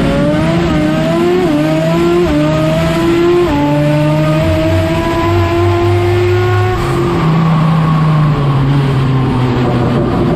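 Drag race car's engine heard from inside the cockpit, running at full throttle and pulling up through the gears. Its pitch climbs in each gear and drops at each upshift, four times in the first few seconds. About seven seconds in, the engine note falls away as the driver lifts off, and the car runs on at a lower, steadier pitch.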